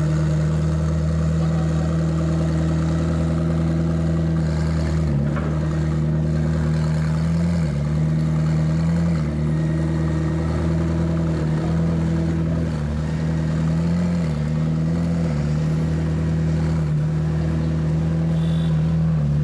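McLaren P1 GTR's twin-turbo V8 idling, the idle speed wavering down briefly every couple of seconds.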